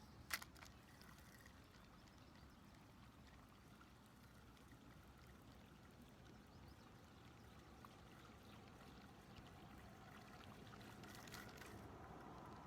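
Near silence: a faint, even outdoor hiss, with one sharp click about a third of a second in.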